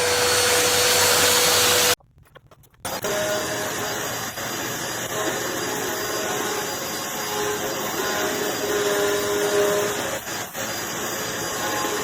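Hoover Pet Max Complete upright vacuum cleaner running with a steady whine, cutting off abruptly about two seconds in. After a brief silence, a fainter, different background noise with broken faint tones takes over.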